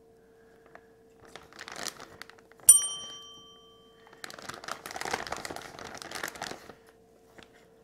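Clear plastic marinade bag crinkling as raw chicken wings are pushed and shifted inside it, in two spells, the longer and busier one in the second half. About a third of the way in comes a single sharp metallic ding that rings on for about a second and a half, the loudest sound here. A faint steady hum runs underneath.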